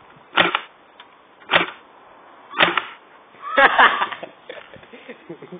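BB guns firing: single sharp shots about a second apart, three times, then a quicker, louder cluster of shots near the end.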